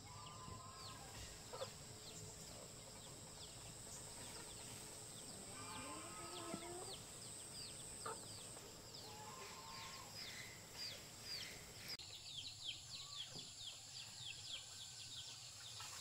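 Chickens clucking faintly a few times, over many short, falling bird chirps that grow denser after a cut about twelve seconds in.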